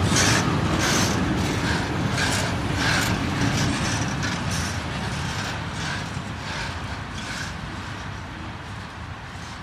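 Flat wagons loaded with steel, moved by an SM42 diesel shunter, rolling slowly past with a low rumble and repeated short metallic clanks from the wheels and couplings. The sound fades steadily as the wagons move away.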